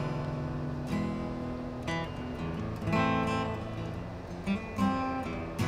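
Solo guitar improvisation: single plucked notes and strummed chords ringing, with a new note or chord struck about every second.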